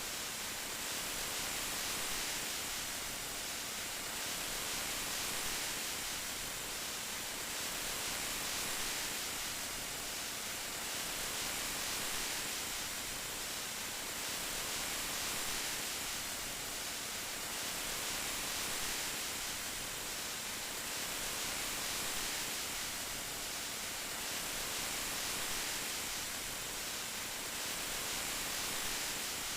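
Steady rain sound: an even, hissy wash without separate drops, swelling and easing gently about every two seconds.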